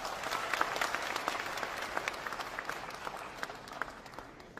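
Hall audience applauding: a crowd of hands clapping, starting at once and dying away near the end.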